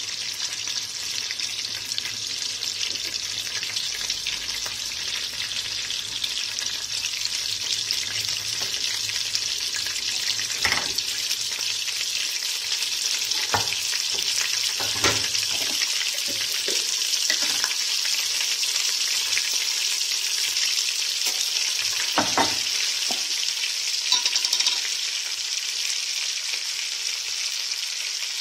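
Butter melting and sizzling in a frying pan, a steady high hiss. A few brief knocks sound partway through.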